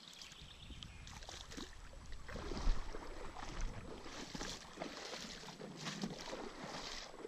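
River water sloshing and splashing around legs as someone wades through a shallow river, with wind noise on the microphone, loudest about three seconds in.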